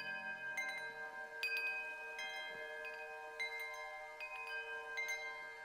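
Wind chimes ringing: several tuned tones are struck at uneven moments, and each rings on and overlaps the others.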